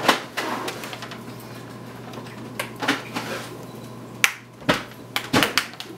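Plastic clips of a laptop screen bezel snapping into place as the bezel is pressed onto the lid: a series of sharp, irregularly spaced clicks, the loudest a little past four seconds in.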